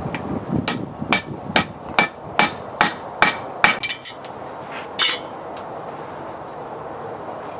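Hand hammer striking a red-hot railroad spike on an anvil: a steady run of about eight blows, a little over two a second, each with a slight ring. A few lighter clinks and one louder clatter follow.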